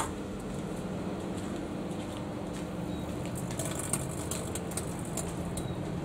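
Microwave oven running, a steady electrical hum from its transformer and fan. Faint crackling ticks come in over the second half.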